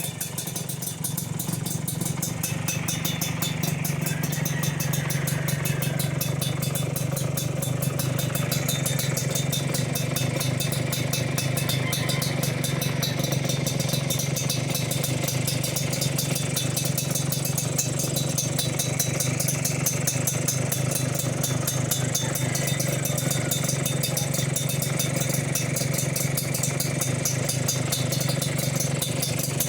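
Kawasaki HD3's single-cylinder two-stroke engine idling steadily through an aftermarket RCM downpipe exhaust, a little louder after the first couple of seconds.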